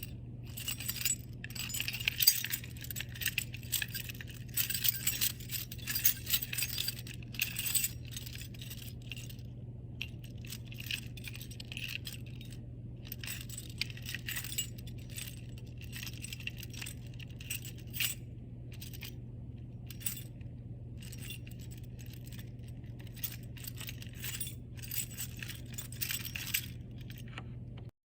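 Irregular jingling and clinking of small hard objects, densest in the first several seconds and sparser later, over a steady low hum.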